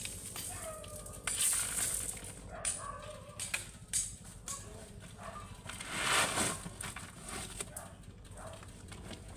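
Steel shovel scraping into a pile of crushed gravel, with loose stones rattling and pouring, in several separate bursts; the biggest comes about six seconds in.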